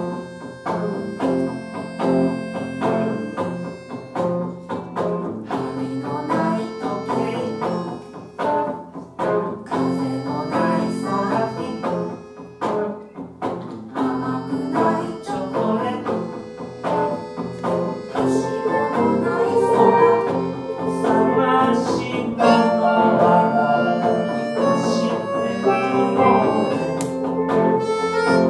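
Live band music: several instruments playing a busy tune of many short notes, growing a little louder about two-thirds of the way through.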